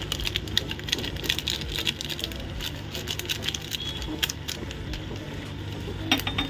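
Vegetables frying in a pot, giving a faint, irregular crackle of small pops over a steady low hum, with one sharper click near the end.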